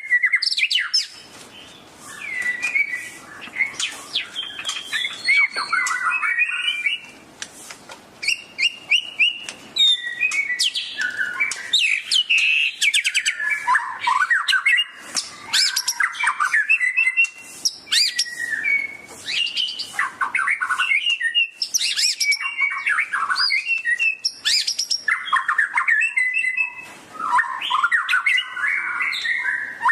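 White-rumped shama (murai batu) singing a long, varied song of whistled phrases, quick trills and clicking notes, broken by short pauses about a second in and around seven seconds in.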